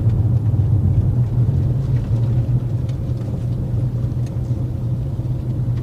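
Steady low drone of a Ford Mustang 2.3T's road and engine noise, heard inside the cabin while driving slowly, with a few faint light ticks.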